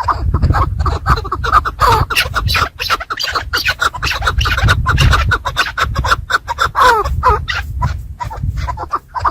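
Chukar partridge calling in quick clucking notes, some sliding downward, over a steady scratching and rustling.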